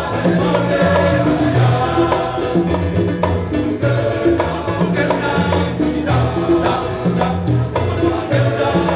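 Men's choir singing an Easter hallelujah song in several parts, accompanied by an electric bass guitar playing steady low notes.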